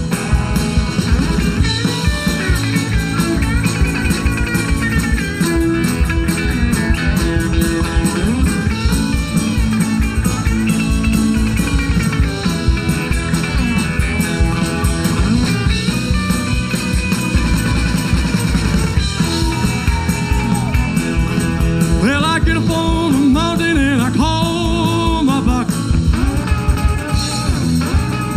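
Live rock-and-roll band playing an instrumental break: electric guitar lead over bass guitar and drum kit with a steady beat, the guitar bending notes most clearly in the last few seconds.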